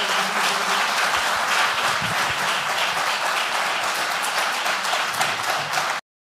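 Audience applauding, a steady dense clapping that cuts off abruptly near the end.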